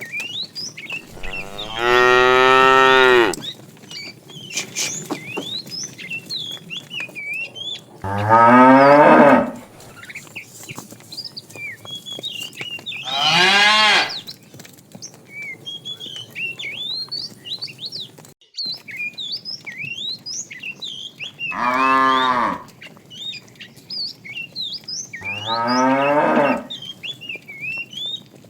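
Cattle mooing: five long moos a few seconds apart, each about a second and a half, over steady high chirping in the background.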